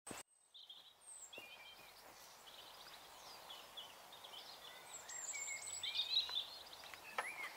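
Faint outdoor birdsong: several small birds chirping and warbling over a light steady hiss, slowly growing louder.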